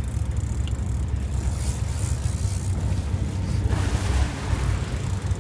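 Sportfishing boat's engine running with a steady low rumble, mixed with wind buffeting the microphone. A short rush of noise comes about four seconds in.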